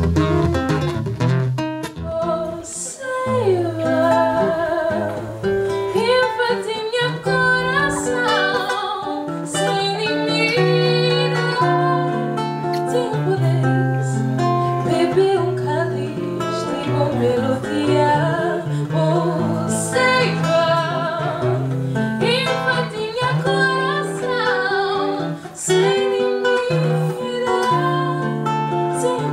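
A man singing into a microphone to an acoustic guitar accompaniment.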